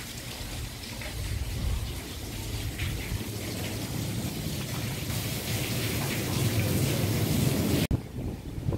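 Steady splashing of running water, with a low rumble underneath; it cuts off suddenly near the end.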